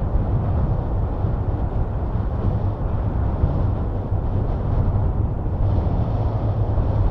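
Low, steady rumble of a twin-engine widebody jet airliner landing, with wind buffeting the microphone.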